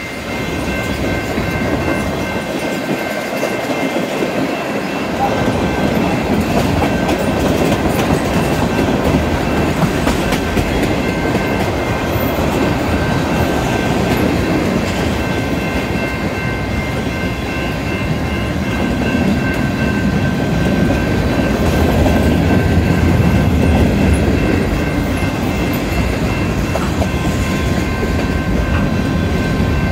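Freight train cars rolling past, tank cars and covered hoppers, their steel wheels clicking over the rail joints over a continuous rumble that grows louder about five seconds in. Steady high ringing tones sound above it.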